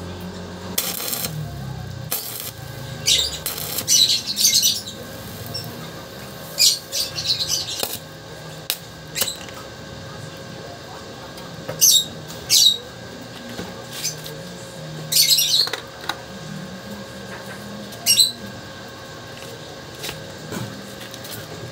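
Stick (arc) welding on a steel mesh grid: a low crackling hiss broken by sharp, high-pitched bursts every few seconds.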